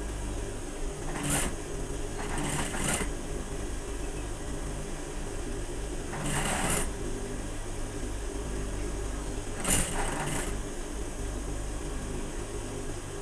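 Industrial lockstitch sewing machine stitching cotton fabric in four short runs, with the steady low hum of its motor between them.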